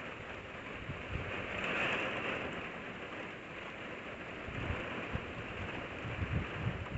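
Storm wind and rain making a steady rushing hiss, with several low thumps of gusts buffeting the phone's microphone, most of them in the second half.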